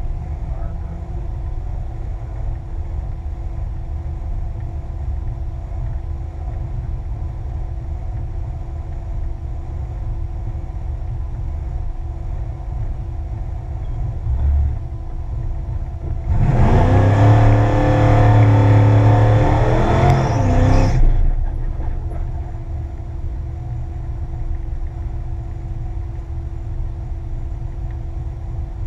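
Drag car's engine idling with a steady rumble, then revved hard for about four seconds a little past the middle, the pitch rising and falling with a hiss on top, before settling back to idle.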